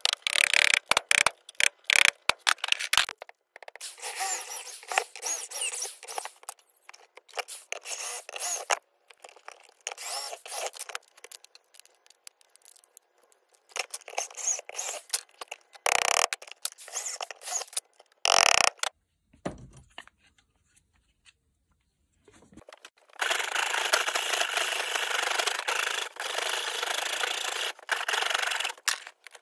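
Hand tools working wood: a quick run of sharp mallet taps on a chisel, then stretches of scraping and cutting, a drill boring into a small block of wood about halfway through, and near the end a rasp filing wood clamped in a vise in dense, steady strokes.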